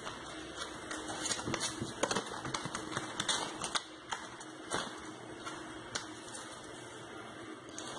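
Irregular clicking and rustling of EVA foam flowers and their stems being handled and rubbed together close to the microphone.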